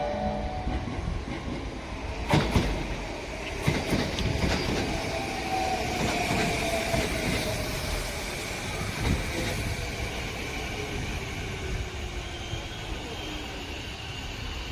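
Sanyo Electric Railway electric train running through the station: wheels clack sharply over rail joints a few seconds in over a steady rumble, and a whine falls slowly in pitch over several seconds.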